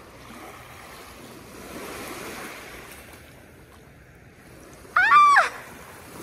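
Small waves lapping on a sandy Lake Huron shore. About five seconds in comes a short, loud, high cry that rises and then falls in pitch.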